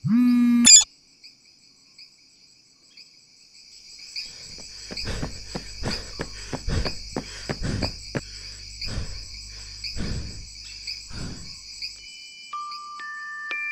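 Crickets chirping in a steady night chorus, with a run of footsteps through the middle. A short phone buzz alert ends in the first second, and mallet-percussion notes like a glockenspiel come in near the end.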